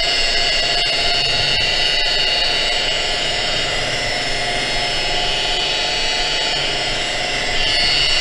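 Variable-speed electric rotary buffer running steadily at about 1200 rpm, its foam pad polishing paste on an aluminum pontoon tube: a steady whine over the pad's rushing noise.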